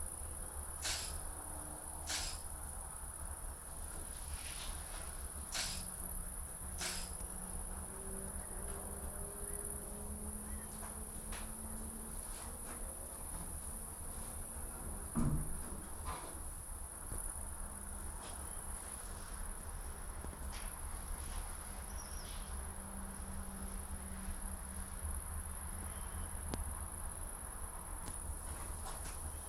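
Crickets stridulating in a continuous high-pitched buzz, over low wind rumble on the microphone. A few sharp clicks come in the first seven seconds, and a thump about fifteen seconds in.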